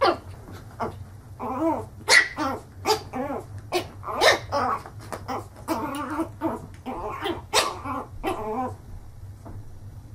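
A small puppy yapping and growling at its own reflection in a mirror: sharp high barks mixed with quicker, wavering growly yips.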